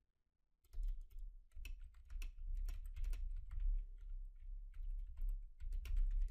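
Computer keyboard typing: a quick run of keystrokes that starts under a second in and goes on in short bursts.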